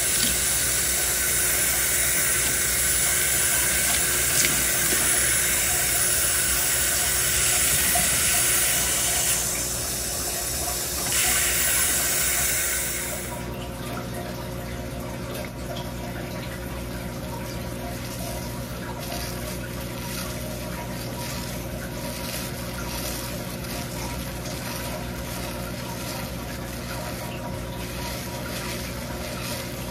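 Water running from a kitchen faucet onto wet hair and into a stainless steel sink, a steady hiss that stops about thirteen seconds in. After that comes a quieter steady low hum with faint wet rubbing as fingers work shampoo lather into the hair.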